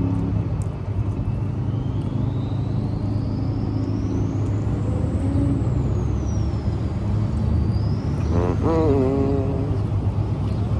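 Steady low rumble of road traffic with a constant hum. About eight and a half seconds in, a short wavering vocal sound rises above it.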